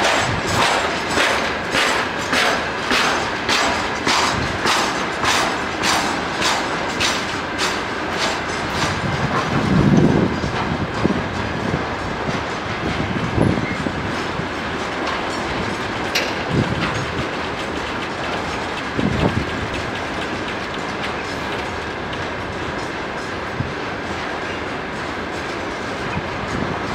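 Freight train of covered hopper wagons passing close by. For the first nine seconds or so the wheels clatter over rail joints at about two beats a second, then the sound turns into a continuous rumble and rattle of rolling wagons, with a few dull thumps, the loudest about ten seconds in.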